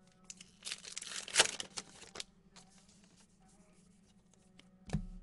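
A trading-card pack wrapper being torn open and crinkled, a rustling burst of about a second and a half, followed by faint handling and one sharp click near the end.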